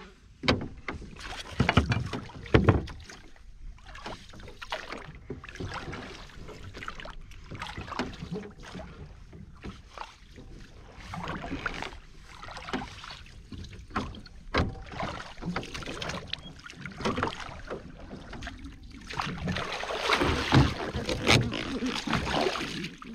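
Water splashing and sloshing around a small boat, with irregular knocks and thuds, as a set hook line is hauled in. The loudest splashes come about two seconds in and again near the end.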